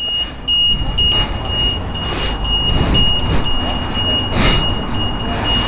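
Low, steady rumble of street traffic with a high electronic beep repeating about twice a second, and glove leather rustling as a rider's gloves are pulled on.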